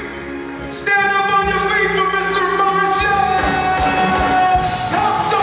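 Live band music: a held chord comes in about a second in, and drums join about three seconds in.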